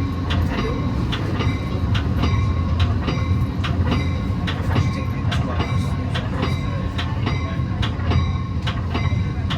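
Metra commuter train car at speed, heard from inside the car: a steady low rumble of the wheels on the track with regular clicks about twice a second, and faint steady high tones above.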